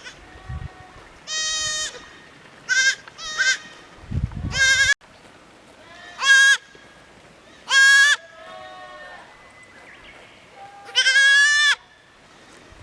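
Goat kids bleating again and again: about seven short, high, wavering calls spaced a second or more apart, with a low rumble under one call about four seconds in.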